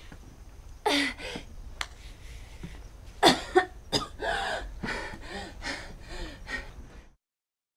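A girl's strained grunts, gasps and heavy breathing with effort, in a string of short bursts. All sound cuts off abruptly near the end.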